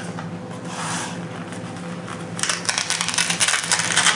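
Rasping, scratchy handling noise as a rolled fabric kit pouch is grabbed and pulled open, starting a little past halfway and loudest near the end, over a steady low hum.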